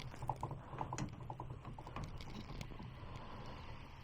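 Faint, irregular light clicks and taps, thickest in the first second or so, then sparser: small hardware being handled.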